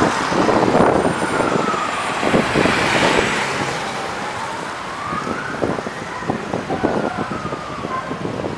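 An emergency-vehicle siren wailing, its pitch sliding slowly down and back up, over the steady noise of slow road traffic.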